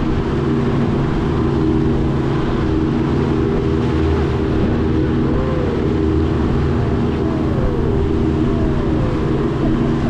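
Sailboat's engine motoring steadily under way, a constant low drone with no change in speed.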